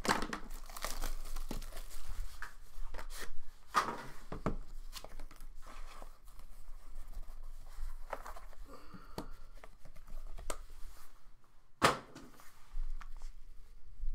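Trading cards being handled from a freshly opened pack: wrapper crinkling and cards sliding and flicking against each other in irregular rustles and taps, with a sharp click near the end.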